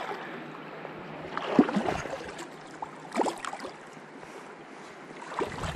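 Steady rush of river water, with a few short splashes about one and a half, three, and five and a half seconds in.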